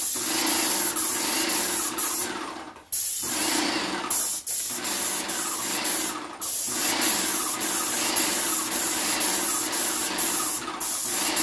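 Airless paint sprayer gun hissing steadily as it sprays paint onto wooden siding. The spray cuts off briefly four times as the trigger is released between passes, once for about a second.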